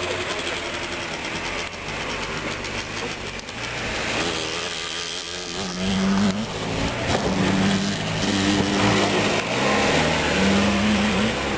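Suzuki Jimny's engine working under load as the 4x4 crawls through deep muddy ruts. The revs rise and fall in repeated surges, louder from about six seconds in.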